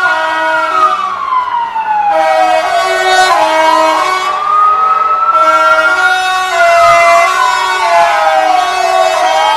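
Tow-truck sirens: a wailing siren sweeping slowly down and up in pitch, about three seconds each way, over a second siren alternating between two lower notes.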